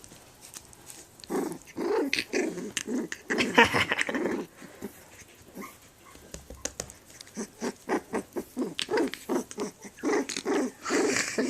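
A three-week-old Pembroke Welsh Corgi puppy making small high play-growls and yips. A cluster of calls comes a little over a second in, then after a lull a quick run of short calls, several a second, toward the end.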